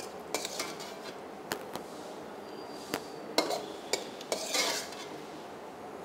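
A metal spoon knocking and scraping against a wok while it stirs thick avial, with a string of short sharp clinks and then a longer scrape about four and a half seconds in.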